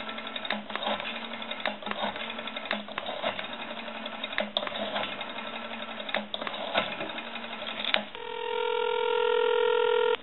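Rotary dial of a brass elephant telephone pulsing out a number over the line, a quick run of irregular clicks. Near the end a steady ringback tone sounds for about two seconds as the call goes through.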